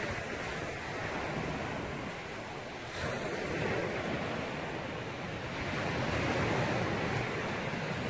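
Sea waves washing onto a pebble beach, a steady wash of noise that swells a little about three seconds in and again near the end, with wind on the microphone.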